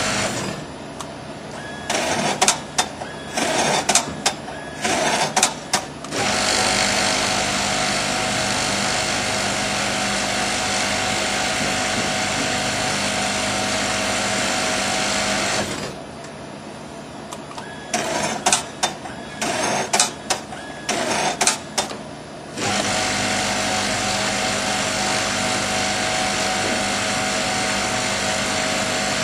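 1335M industrial sewing machine stitching a mattress border with pleated corners. Long stretches of steady fast stitching alternate twice with a few seconds of short stop-start bursts and sharp clicks.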